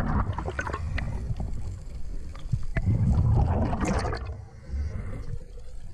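Underwater gurgling and rushing of air bubbles streaming past the camera, loudest a little after halfway, then briefly dropping off.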